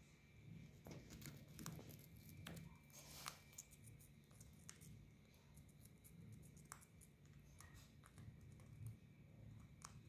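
Faint scattered clicks and short scratches from a green parakeet moving about its wire cage beside a corn cob, over a low steady hum; near silence overall.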